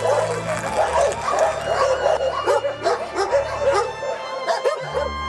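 Many dogs barking and yelping at once in a continuous, overlapping chorus, which breaks off near the end.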